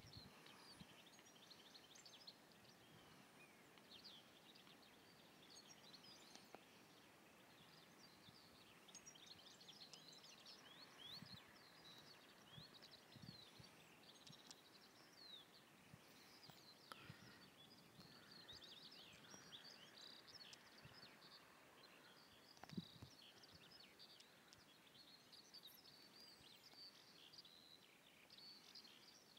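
Faint chorus of small songbirds chirping and twittering, busy and continuous, with a few soft low thumps scattered through it.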